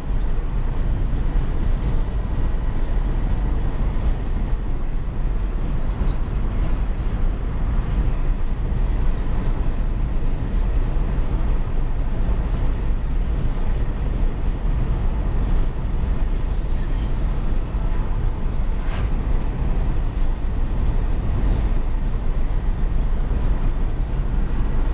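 Steady road and engine noise heard inside the cabin of a moving Volkswagen car, a constant low rumble.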